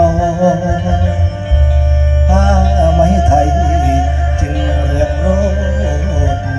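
Mor lam singing: a man's amplified voice in long, wavering held notes over steady instrumental accompaniment with a continuous low bass.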